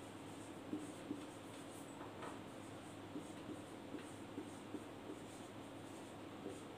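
Marker pen writing on a whiteboard: faint, irregular short strokes and taps as letters are written.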